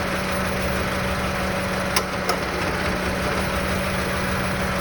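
Honda Civic FD 1.8-litre four-cylinder engine idling rough with a misfire, running like a three-cylinder, with two sharp clicks about two seconds in.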